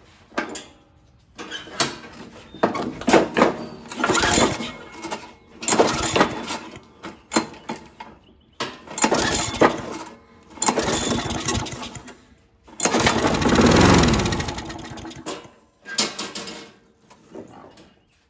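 Briggs & Stratton 6.0 hp (190 cc) mower engine being pull-started several times after a shot of starting fluid, each pull a short burst of cranking. On one pull late on it fires, runs for about two seconds and dies away with falling pitch. It has spark and compression but won't keep running, which the owner takes for a fuel delivery problem.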